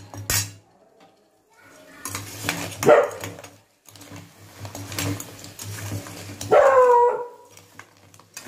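A dog barking twice, about three seconds in and again more loudly near the end, after a brief clatter of a spoon against a cooking pot at the start.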